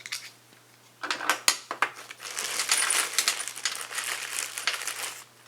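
Small metal tool pieces (a socket and a T-handle driver) clinking and rattling as they are handled and fitted together. A few separate clicks come about a second in, then a busy jingling rattle lasts about three seconds.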